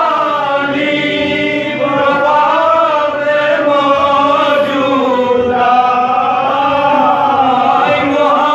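A man's voice chanting in long, slowly wavering held lines: the sung, lament-style masaib recitation of a Shia majlis.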